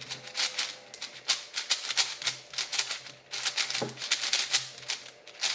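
Rapid, irregular clicking and clacking of a new MoYu Aochuang 5x5 speed cube's plastic layers being turned by hand in quick flurries.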